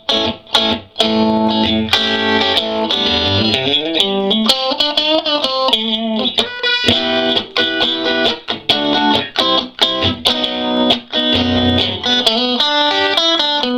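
Electric guitar played clean through a 1956 Fender Princeton tweed tube amp at low volume: a 1983 Fender Stratocaster on the bridge-and-middle pickup setting, picking a run of single notes and chords.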